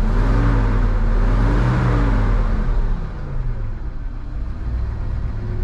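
Work truck's engine, just jump-started after sitting dead, revved twice with the pitch rising and falling, then settling to a steady idle about three seconds in.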